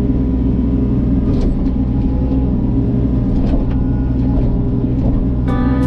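Mini excavator's diesel engine running steadily under load while the operator digs, heard from inside the cab. Music comes in near the end.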